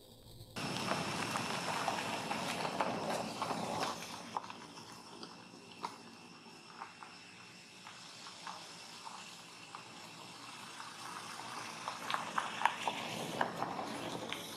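Rustling, scratching and scattered sharp clicks as young macaques clamber on a tree and handle and bite dry sticks, over a faint steady high tone. The rustling is densest for the first few seconds, and the clicks come thickest near the end.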